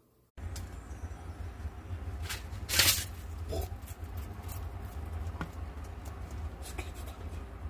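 Light scratching and rustling with scattered clicks over a steady low rumble, starting abruptly, with one louder rustle about three seconds in.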